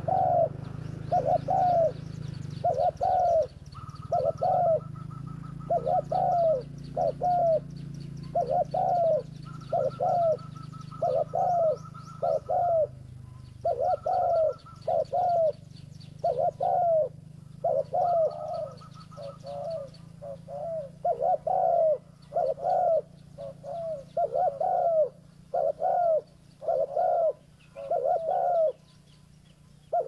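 Spotted dove (tekukur) cooing over and over, in short groups of two or three low coos nearly once a second, with faint high chirping behind.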